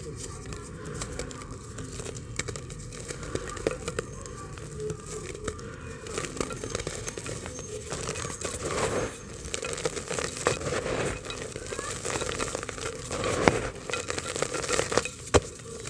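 Dry blocks of multani mitti (fuller's earth) being crumbled by hand, with crackling and many small clicks as chunks and powder drop into a terracotta clay pot. It gets denser and louder about six seconds in, with a couple of sharper knocks in the last few seconds.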